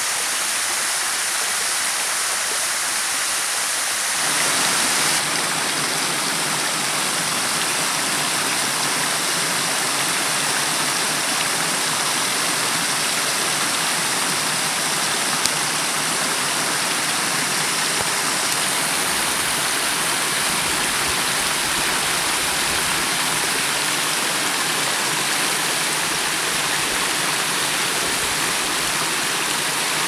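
Waterfall and cascading mountain stream rushing over rock: a steady, even rush of water that becomes fuller and deeper about four seconds in.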